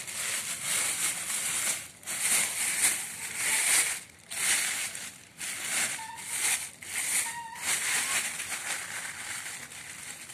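Repeated bursts of crinkly rustling and crackling, each under a second long, with short gaps between them.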